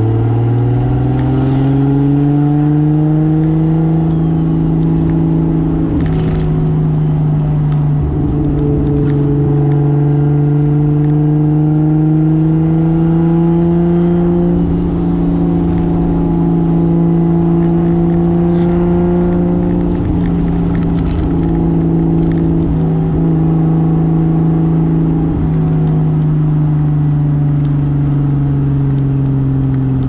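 Single-turbo 2JZ straight-six of a 1995 Toyota Soarer pulling steadily on the road, its engine note climbing slowly over the first half, then holding with small dips and easing down near the end. A few faint knocks are heard along the way.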